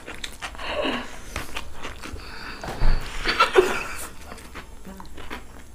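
Two people slurping and chewing chow mein straight off their plates without using their hands. Snatches of stifled laughter come in between, with the loudest bursts about one and three seconds in.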